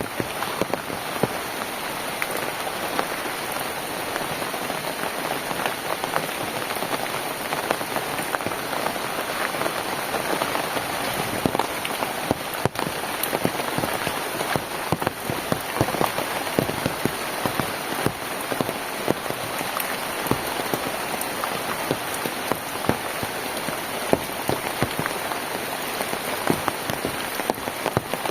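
Steady rain falling on hard surfaces, a dense hiss with many close individual drops ticking and pattering throughout.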